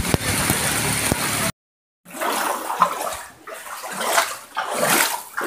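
Floodwater rushing and sloshing, swelling and fading in uneven surges. It starts as a steady hiss, breaks off for a moment, then comes back in surges.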